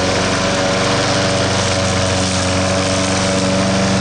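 Troy-Bilt self-propelled walk-behind lawn mower's small engine running steadily at a constant speed after a primed start, the mower running fine.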